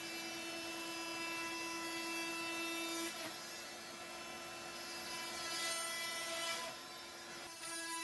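Milwaukee M18 FUEL cordless oscillating multi-tool running at high speed as its blade cuts into a wooden door-frame header: a steady buzzing whine. The whine weakens briefly about three seconds in and dips again near the end as the load on the blade changes.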